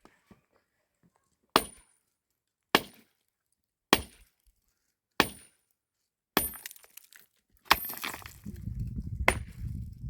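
A tool striking wood in a slow, steady rhythm: seven sharp blows, a little over a second apart, each with a brief high ring. A low rumble comes in during the last couple of seconds.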